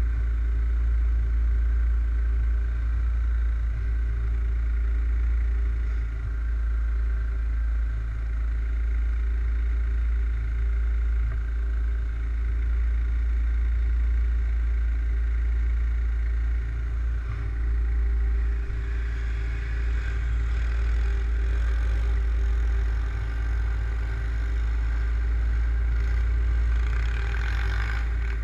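ATV engine running steadily at a fairly even speed over a strong low rumble, with more high-pitched engine noise in the last few seconds.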